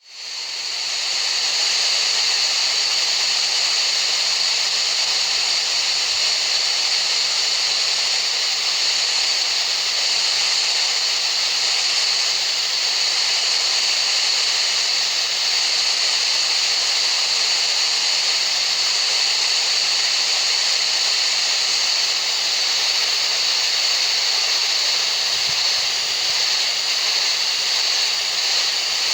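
Steady tinnitus-masking noise: a continuous, even hiss, strongest in the high range, fading in over the first second or so.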